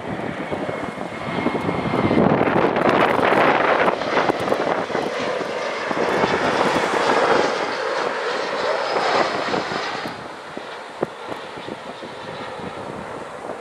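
Jet airliner passing close by, its engine noise swelling about a second and a half in, holding loud with a whine over it for several seconds, then fading after about ten seconds.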